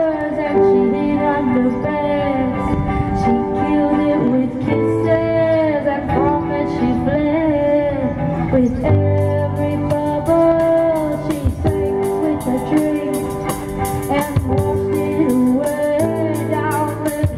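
Live rock band: a female lead singer over electric guitars and a drum kit. About halfway through, the drums and cymbals come in with a busier, steady beat.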